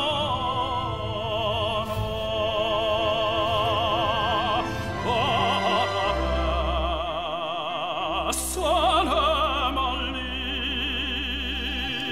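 Background music: a classical-style singer with wide vibrato over instrumental accompaniment, with long held bass notes in the second half.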